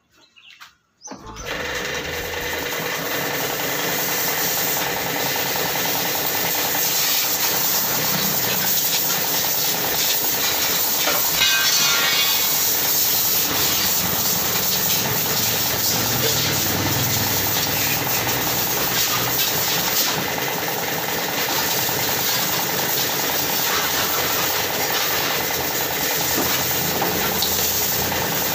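A machine running steadily, with a hiss over it, starting suddenly about a second in after a brief silence.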